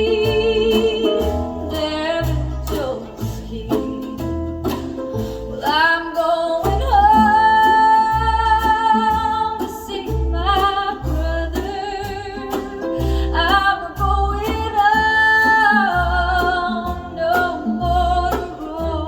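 Country gospel song playing through restored vintage Pioneer CS-410 loudspeakers: long held, wavering sung notes with guitar over a steady bass beat.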